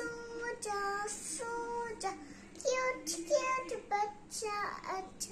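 A young girl singing a lullaby to put a baby doll to sleep, in short held notes with brief pauses between phrases.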